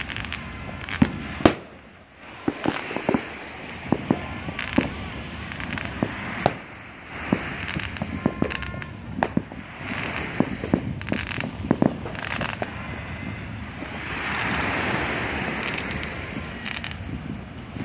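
Fireworks going off: irregular bangs and crackling pops, some single and some in quick runs, with a rushing noise swelling in the background near the end.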